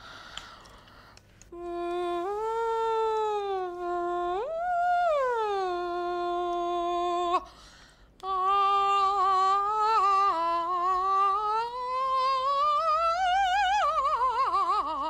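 Soprano singing a vocal warm-up exercise with a pen held in her mouth, which keeps the jaw still. It starts with a long held note that swoops up and back down. After a short break comes a second phrase with vibrato that climbs to a high peak and then slides down.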